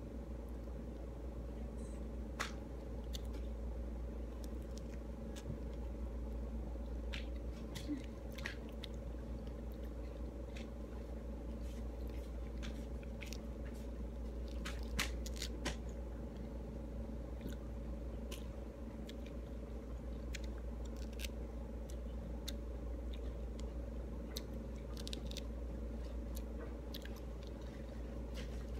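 Close-up eating sounds: pomelo segments being peeled of their membrane and chewed, with scattered small wet clicks and crackles from the fruit and mouth. A steady low hum runs underneath.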